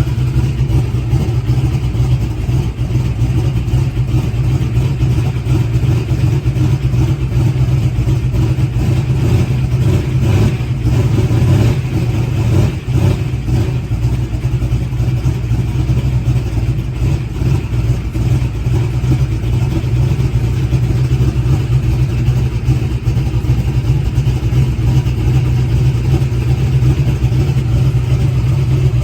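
Boosted small-block Chevy V8 drag engine running at a cold idle, steady throughout with a brief unsteady patch a little past the middle.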